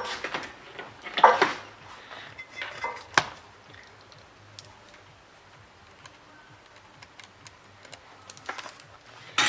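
Clicks and light clatter of a USB charger lead and plug being handled and plugged in: a few short rustling knocks and a sharp click in the first three seconds, faint ticks in a quieter middle, and more small clicks near the end.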